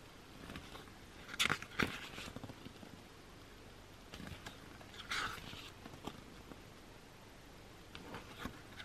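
Pages of an album photobook being turned by hand: short paper rustles and flaps, the loudest about a second and a half in and again about five seconds in, with faint handling of the paper between.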